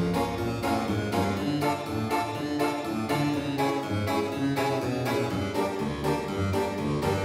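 Background music led by a harpsichord-like keyboard playing a steady run of notes.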